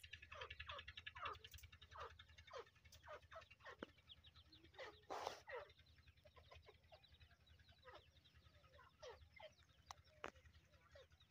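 Grey francolin chicks peeping faintly: many short, high calls that drop in pitch, in quick runs. A brief rustling noise comes about five seconds in.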